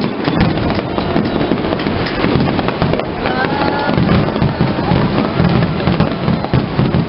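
Fireworks finale barrage: many aerial shells bursting in rapid, overlapping succession, with dense crackling between the reports and no gaps. A brief pitched sound rises out of it about three seconds in.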